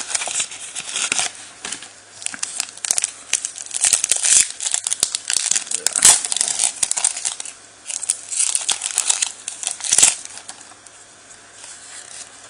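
Foil wrapper of a Pokémon booster pack being torn open and crinkled, with repeated crackling and ripping that eases off near the end.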